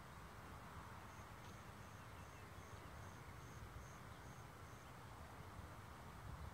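Faint open-air ambience: a steady low rumble, with a run of about ten short, high chirps, two to three a second, between one and five seconds in.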